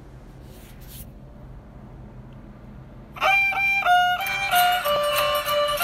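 Faint steady hiss, then about three seconds in a piano accordion starts playing a melody of held notes that step from pitch to pitch.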